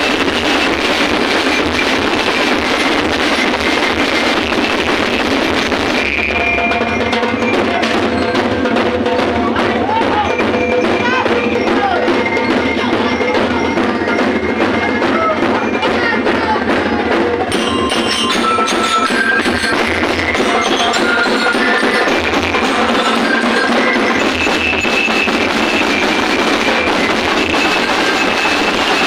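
Loud music with percussion over a dense, steady din, with some voices mixed in.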